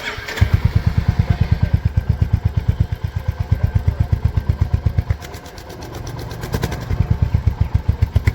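Royal Enfield Hunter 350's single-cylinder engine running at idle with an even pulsing exhaust beat that goes quieter for a moment about five seconds in. It carries the rattle that the showroom mechanic diagnoses as tappet noise from inside the engine, and that the owner first blamed on a loose silencer nut.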